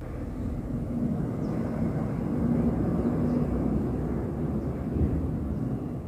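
A passing vehicle's low engine rumble, growing louder over the first two or three seconds and fading away near the end.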